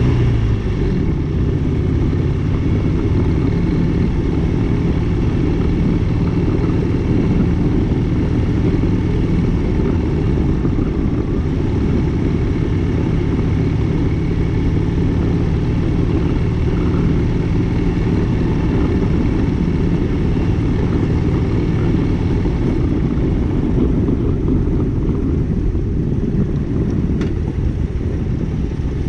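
Motorcycle riding at a steady speed: a loud, even rumble of engine and rushing air. A steady low engine note fades out about three-quarters of the way through.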